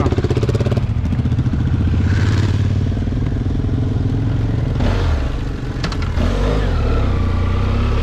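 BMW trail motorcycle engine pulling away and accelerating, heard from on board the bike. The engine note changes about a second in and dips briefly around five and a half seconds in before picking up again.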